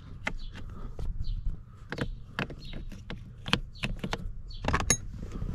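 Chrome sockets clicking and clinking as they are lifted out of and pressed back into a plastic socket-set case. An irregular run of short knocks, some with a brief metallic ring.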